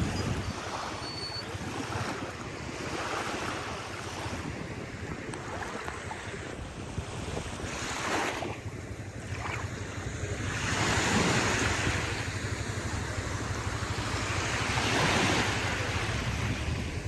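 Caspian Sea waves washing onto the shore, surging and falling back in repeated swells, the biggest washes about eight, eleven and fifteen seconds in. Wind noise on the microphone lies under it.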